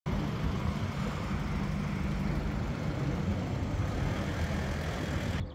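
Steady low engine rumble of motor traffic, with a broad hiss over it. It cuts off abruptly near the end.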